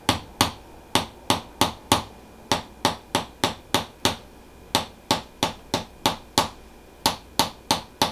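Handheld chiropractic adjusting instrument delivering repeated sharp clicking taps during a percussive adjustment, about three a second in short runs with brief pauses between.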